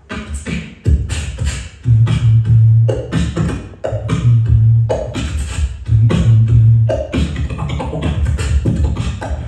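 Human beatboxing into a handheld microphone: sharp drum-like clicks and snare hits over a deep, held bass note that lasts about a second and comes back several times.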